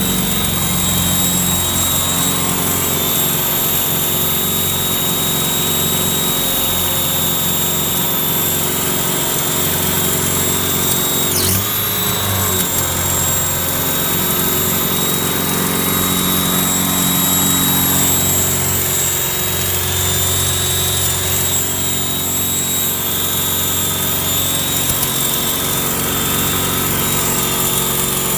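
Volvo B230 four-cylinder engine running steadily, with a steady high-pitched whine over the engine note, the weird noise the owner is showing. About twelve seconds in, the whine briefly drops in pitch and comes back.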